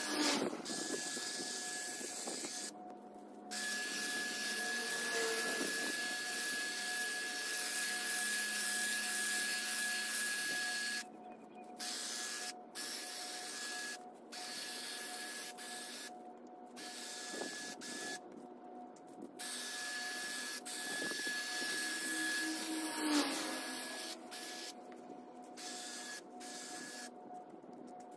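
Hedge trimmer cutting through an ivy-covered hedge, its motor running with a steady whine in spells that cut off and restart many times.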